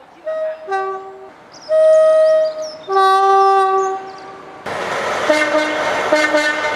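Two-tone locomotive horns: a short high-low toot, then a longer, louder high-low blast. Then an abrupt cut to a steady rushing noise, over which a horn sounds two short blasts.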